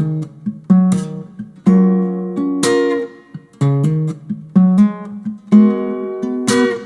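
Background music: acoustic guitar strummed and picked in chords about once a second.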